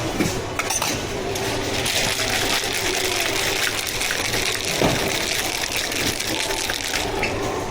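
Water running in a steady stream for several seconds, with a few light clicks and a dull knock partway through.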